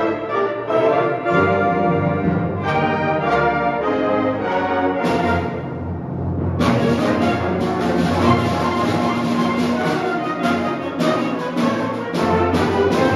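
Concert band playing: held brass and woodwind chords, then after a brief swell about five seconds in, the full band comes in loud with sharp, repeated accents.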